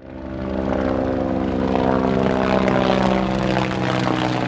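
A steady, unchanging engine-like drone resembling a propeller aircraft, fading in over the first half second.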